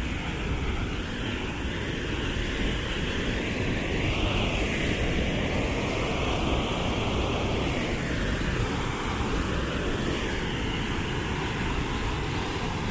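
Steady rushing roar of Devi's Fall, a powerful waterfall plunging into a narrow rock gorge. The hiss of the water sweeps slowly up and down in tone.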